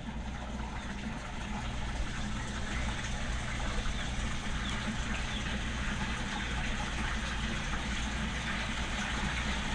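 Water pump on a fish tank running steadily, a low hum under the sound of splashing water.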